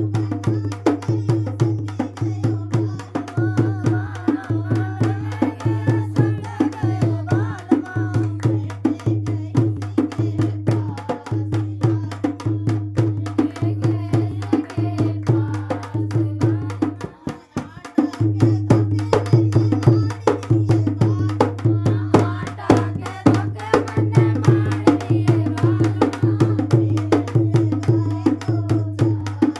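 Upbeat dance music with fast hand-drum percussion over a steady, heavy bass beat, and a melody line rising over it at times. The beat drops out briefly a little past the middle, then comes back in.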